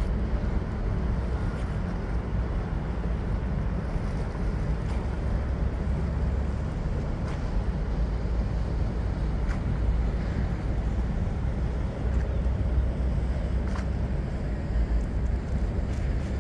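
Indian Pacific passenger train running: a steady low rumble with wind noise on the microphone and a few faint clicks.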